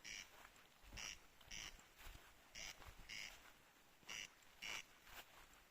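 A night animal calling faintly: short rasping notes in pairs, a pair about every one and a half seconds.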